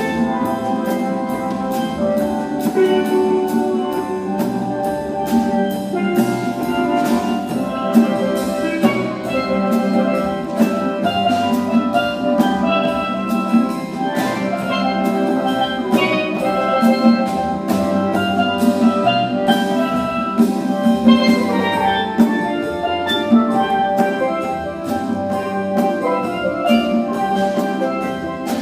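Steel drums (steelpans) playing a melody over a percussion ensemble, with conga drums keeping a steady rhythm underneath.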